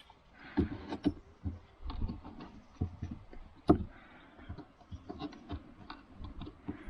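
Irregular knocks, taps and clicks of wooden boards and screws being handled and fitted by hand, with one sharper knock about halfway through.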